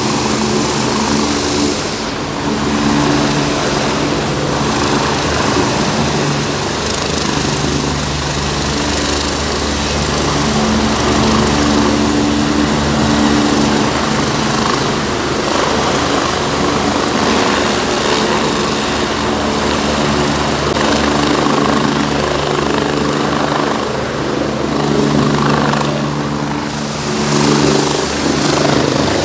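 Helicopter running on its pad during engine warm-up, rotor turning, a steady drone mixed with nearby idling road traffic.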